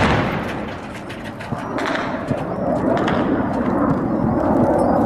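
Echo of a burst from a truck-mounted anti-aircraft gun dying away, then a couple of sharp single cracks. A steady rushing noise carries on underneath.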